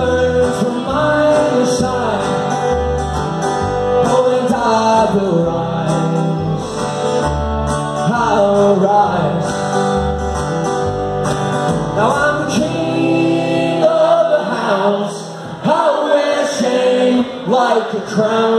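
Live acoustic guitar and fiddle playing a folk-country song. The guitar's regular bass-note strumming drops away about twelve seconds in, leaving mostly the fiddle's sliding notes.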